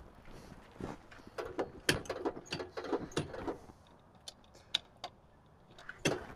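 Scattered clicks, knocks and light metallic jingling of keys and fittings being handled on a tube-frame dune buggy before a start attempt. The engine is not running; the sounds come thickest in the first half and thin out toward the end.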